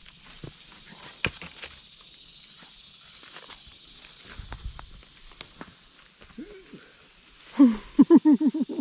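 A steady high-pitched insect chorus, with scattered sharp clicks and crackles of footsteps on leaf litter and twigs. Near the end, a short, loud run of quick pitched vocal pulses, about eight a second, is the loudest sound.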